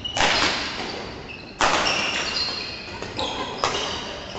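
Badminton rally: rackets strike the shuttlecock three times, about a second and a half apart, with a lighter hit near the end, each echoing in a large hall. Short high squeaks from shoes on the court floor come between the hits.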